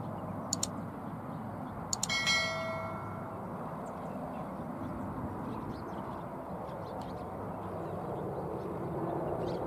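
Airbus A320 jet engines with a steady rumble on approach, growing a little louder near the end. About half a second in and again about two seconds in come two pairs of mouse clicks, followed by a short notification bell chime that rings and fades.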